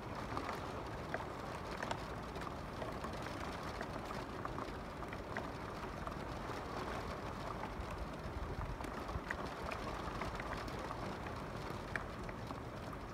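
Steady rain falling at night: an even hiss with scattered sharp ticks of single drops landing.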